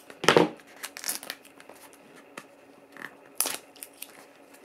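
Cardboard blind-box packaging being torn and crinkled by hand in short, sharp bursts, the loudest just after the start and another about three and a half seconds in.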